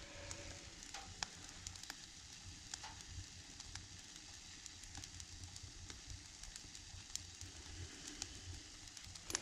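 Wood fire burning in a closed wood stove: faint crackling and hiss with scattered small irregular pops.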